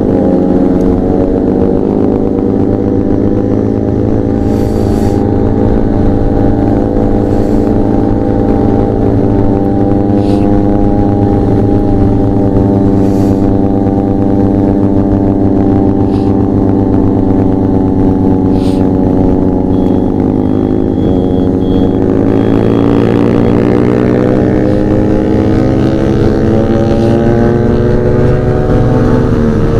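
Motorcycles riding together at speed, among them a Benelli 300 and a Yamaha R15 V4 with an aftermarket SC Project exhaust, giving a loud, steady engine drone. The engines build revs and the note rises about three-quarters of the way in.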